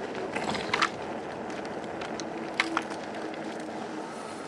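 Magicycle 52V fat-tire e-bike riding along rough, cracked asphalt: steady tire and road noise from the 4-inch tires, a faint steady whine from the hub motor in the second half, and a few sharp clicks, one about a second in and a pair near the middle.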